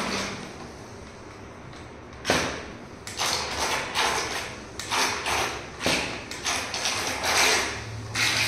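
Small battery-powered RC crocodile boat driven on bathtub water in short bursts, its motor and propeller churning and splashing. It starts suddenly about two seconds in and goes on in a run of bursts.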